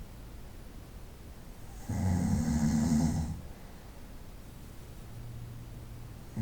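A person snoring in sleep: one loud snore about two seconds in, lasting about a second and a half. Then a quiet breath, and the next snore begins right at the end.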